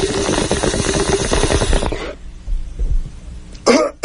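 Bong rip: water bubbling and gurgling rapidly through a bong as smoke is drawn, cutting off abruptly about halfway through. A short loud sound starts just before the end.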